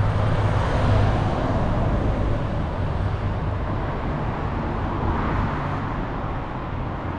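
Steady road traffic on a busy main road, a continuous low rumble of passing motor vehicles.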